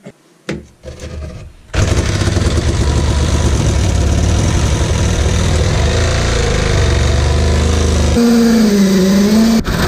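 Reciprocating saw cutting through timber framing, starting about two seconds in after a few light knocks. Near the end the cutting rhythm stops and the motor's pitch dips and rises before it stops.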